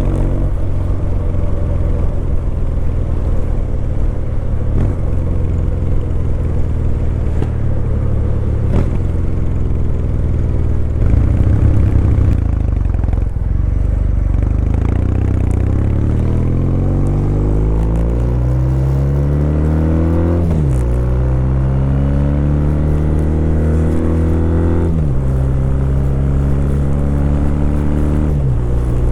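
Kawasaki W800's air-cooled parallel-twin engine running steadily for a while, then pulling up through the gears: the pitch climbs and drops sharply at three upshifts.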